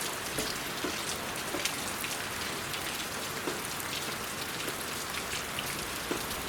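Rain falling steadily: an even hiss dotted with many small ticks of drops striking surfaces.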